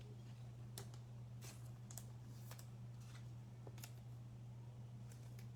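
Faint scattered clicks and swishes of trading cards being handled and flipped through, over a steady low hum.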